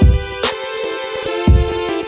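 Background music with a beat: two deep bass-drum hits about a second and a half apart, quick ticks up high, and held chords underneath.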